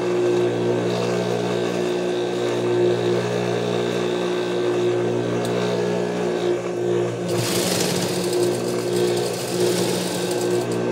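Juki industrial sewing machine: its motor hums steadily, and about seven seconds in it starts stitching, a fast run of about three seconds before stopping.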